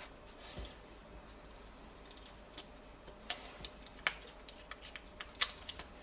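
Small tools and parts being handled against a gimbal's plastic handle housing during a repair: a brief rustle, then from about halfway in an irregular run of light clicks and taps, a few of them sharper.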